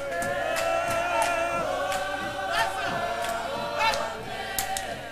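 Church hymn choir singing a hymn together, the voices holding long notes that swell and change pitch.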